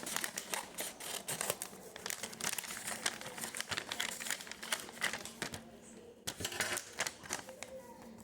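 Handmade packaging crinkling and rustling as it is handled and pulled open by hand, in a dense run of irregular crackles and small clicks.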